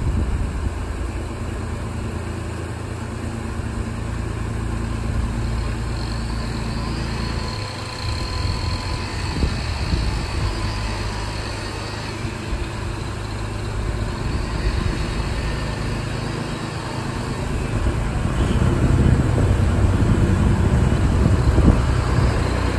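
Canal workboat's engine running steadily as the boat motors out of a lock, over water rushing through the upper lock gate. The engine note changes about a third of the way in, and the rushing water grows louder near the end.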